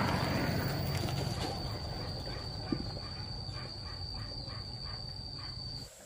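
Small motorbike engine passing close by and fading away, over a steady high-pitched tone. The sound cuts off suddenly near the end.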